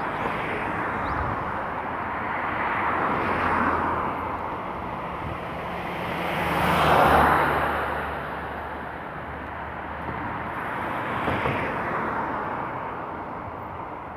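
Street traffic: cars passing one after another over a steady background of road noise. Each car swells up and fades as it goes by, and the loudest passes about halfway through.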